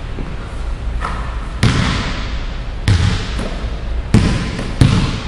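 A basketball bouncing on a hardwood gym floor: four sharp thuds about a second apart, each with a short echo.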